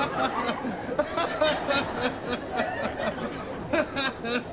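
A person's wordless voice chuckling and snickering in short, repeated bursts.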